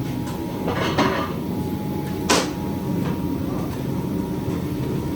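Steady low background rumble, with a brief scraping sound about a second in and one sharp knock a little after two seconds.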